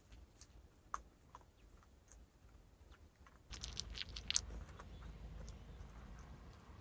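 Scattered small clicks and crackles, growing busier and a little louder about halfway through.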